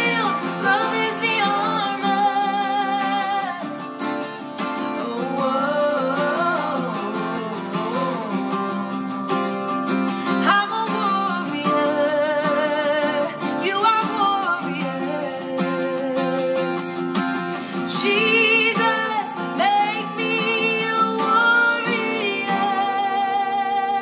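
A woman singing a contemporary Christian song with vibrato, accompanied by a strummed acoustic guitar, with a man's voice joining in harmony.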